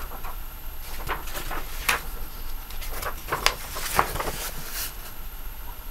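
A comic book being handled and turned over, its paper rustling, with a scatter of brief crackles and soft taps at irregular moments.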